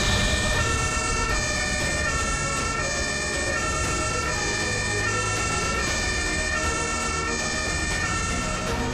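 Airport fire tender's siren, switching back and forth between two tones about every half second, over the truck's engine running.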